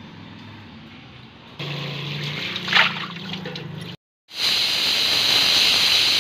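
Water from a tap running and splashing into a tub, louder from about a second and a half in. After a short break, a pressure cooker vents steam through its whistle weight with a loud, steady hiss: the cooker has come up to pressure.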